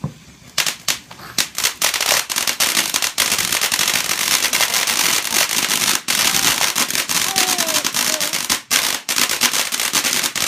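Consumer fireworks going off as a long, dense run of rapid crackling pops, starting about half a second in.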